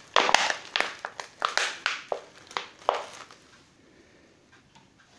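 A thin plastic flowerpot crinkling and crackling as it is squeezed and pulled off an orchid's root ball packed in pine bark, with bark chips rustling. The crackles come in quick bursts and stop about three seconds in.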